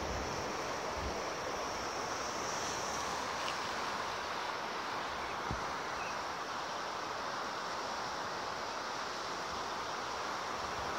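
The Cher in flood: fast-flowing floodwater rushing past the bank as a steady, even hiss.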